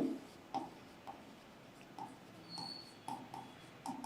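Faint writing sounds: a pen or marker making short, quiet squeaking strokes, about seven of them spaced irregularly.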